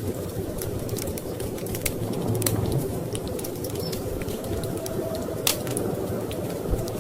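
Wood fire crackling in a fireplace: frequent small sharp pops, with a louder pop about five and a half seconds in, over a steady low rumble of storm wind.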